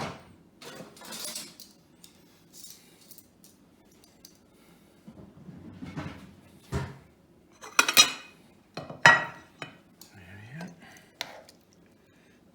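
Serving utensils clinking and knocking against bowls and plates as soup and stew are dished up: scattered sharp clinks, the two loudest about 8 and 9 seconds in.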